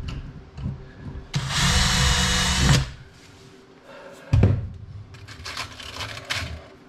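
Power drill driving a screw in one short run of about a second and a half, held back from full torque so the screw doesn't strip out of the thin wall. Knocks and handling of the workpiece before and after, with a heavier thump after the drill stops.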